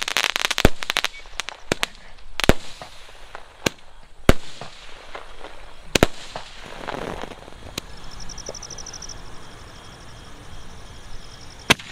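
Aerial fireworks bursting in the sky: a quick run of crackling at the start, then single sharp bangs a second or two apart, with a rushing whoosh in the middle and a last loud bang near the end.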